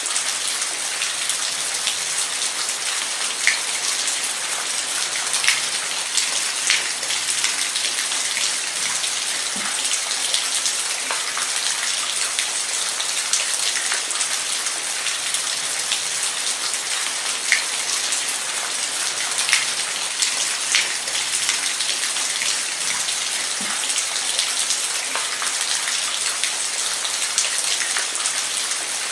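Steady rain falling, an even hiss with individual drops ticking sharply on a surface every second or two.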